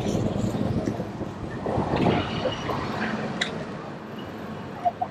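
Fireworks going off: a steady rumbling haze of bangs with a few sharp cracks, dying down toward the end.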